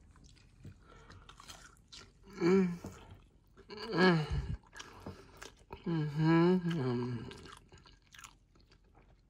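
A person biting into and chewing a warmed beef-and-pork meatball, with small wet mouth clicks, broken by three short murmured voice sounds, the last and longest about six seconds in.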